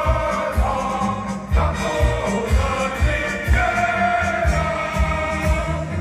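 A choir singing held notes over an instrumental accompaniment with a steady beat of about two a second.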